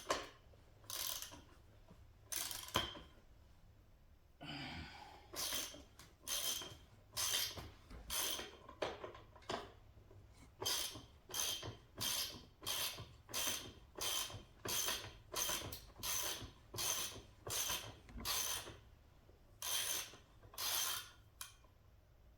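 Socket ratchet being swung back and forth to loosen the chain-tightener nut, its pawl clicking on each return stroke, about one and a half strokes a second. A few separate knocks come in the first seconds before the steady ratcheting starts.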